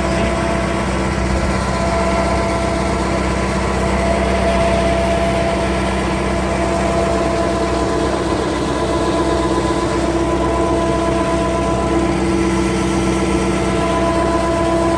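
Farm tractor engine running steadily while powering a crop sprayer: an even hum with a few held tones that barely change.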